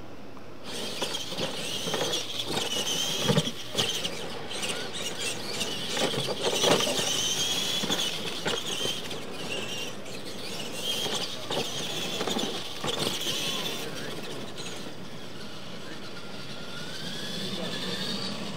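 Electric RC monster trucks racing on dirt: a high motor whine that starts under a second in and rises and falls with the throttle, with several knocks as the trucks hit the ramps.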